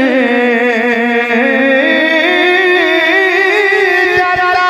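A man singing one long, drawn-out line of a Punjabi devotional song, holding and bending the note with a wavering vibrato and slowly climbing in pitch. A few soft knocks come near the end.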